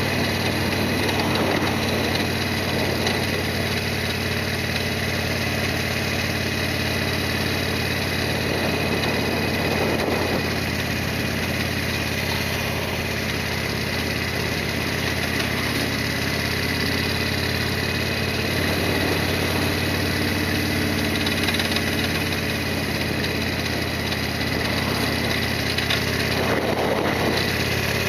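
Harley-Davidson Sportster XL1200R's air-cooled V-twin engine running at a steady engine speed, with two brief swells of rushing noise about ten seconds in and near the end.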